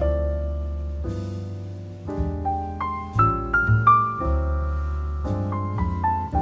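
Background piano music: a slow melody of single notes, each struck and left to fade, over low notes held underneath.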